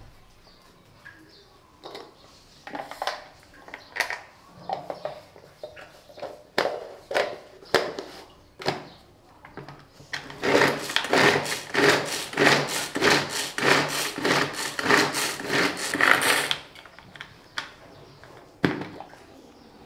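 Hand-pulled string mini chopper chopping onion pieces: a few separate pulls at first, then a fast, steady run of pulls, about four a second, for some six seconds, its blades spinning through the onion, and one last pull near the end.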